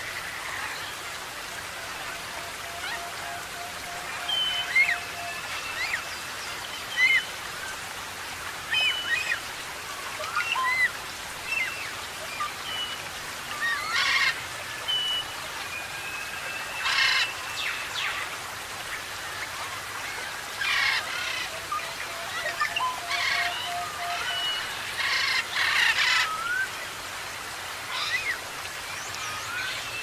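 Mixed wild birds calling: many short whistled notes and gliding whistles, with several harsh, raspy calls in the second half, over a steady background hiss. A low, rapid trill sounds twice, near the start and again about three-quarters through.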